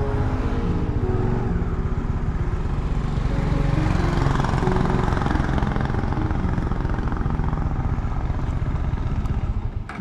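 A motorcycle engine runs at low speed as the bike rolls off the road and slows onto a dirt shoulder, its engine note shifting in pitch, over a steady rush of wind and road noise.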